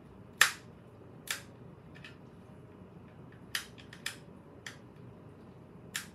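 Robotic toy fish being taken apart with a screwdriver: sharp, irregular clicks and taps of tool and hard plastic, about seven in six seconds, the loudest about half a second in.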